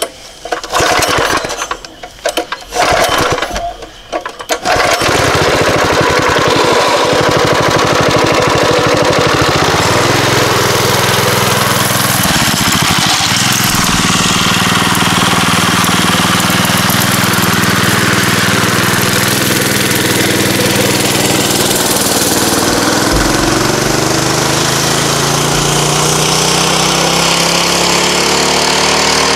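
Small single-cylinder mini bike engine, its governor disconnected, run hard. After a few short choppy bursts, it settles about five seconds in into a steady loud run, its pitch climbing as the bike picks up speed.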